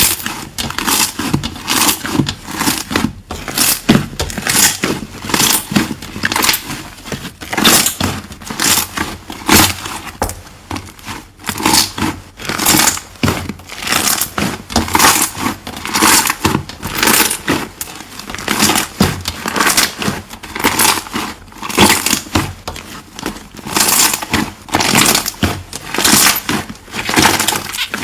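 Slime being squeezed and pressed by hand close to the microphone: a continuous run of short crackly pops, several a second.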